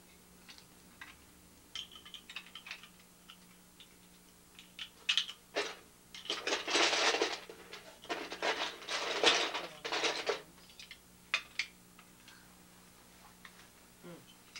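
Plastic Lego pieces clicking and clattering as they are handled, with two longer spells of rattling as pieces are rummaged through, about six and about eight seconds in. A faint steady hum runs underneath.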